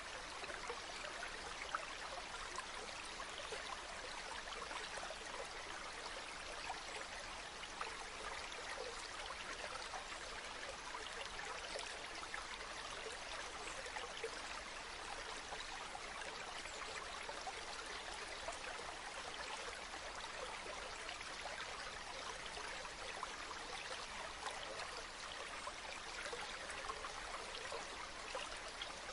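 Small stream of spring water running and trickling, with a steady splashing and bubbling.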